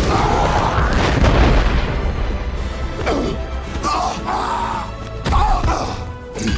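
Film action soundtrack: a music score under heavy booms and crashing impacts, loudest about a second in and again just past five seconds.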